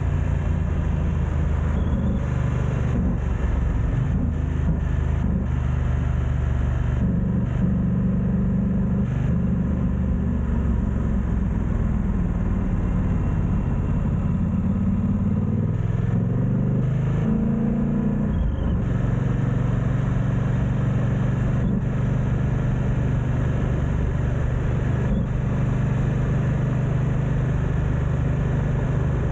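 BMW F900XR motorcycle's parallel-twin engine running at low speed, its note rising and falling with the throttle. About halfway through it revs up, then settles into a steadier, lower note.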